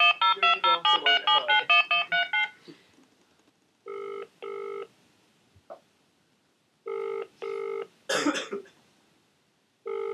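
Telephone touch-tone dialing, a quick run of about a dozen keypad beeps, then the British double-ring ringback tone as the call rings out: three pairs of short rings about three seconds apart. A short noisy sound falls between the second and third pairs.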